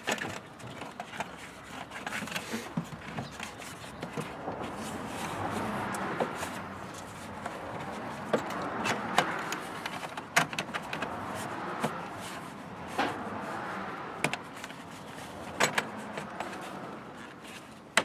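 Scattered clicks and scraping of hand work as the rubber engine air-intake boot is pushed back on and its hose clamp retightened, over a steady hiss.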